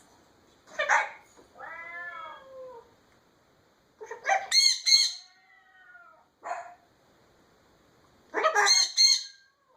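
A parrot's calls: three loud, harsh squawks about four seconds apart, each followed by a softer call that rises and then falls in pitch.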